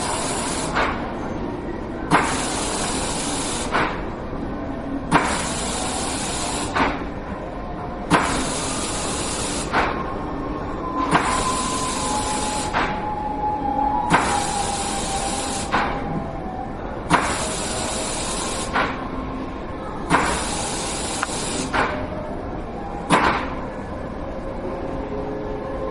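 A museum exhibit mechanism hissing in regular bursts, each about a second and a half long, opening and closing with a sharp click and repeating about every three seconds. A low background hum of the hall runs between the bursts.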